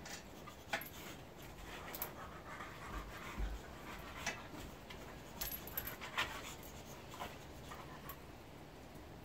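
A dog fidgeting and panting, with a scatter of small clicks and rustles about once a second.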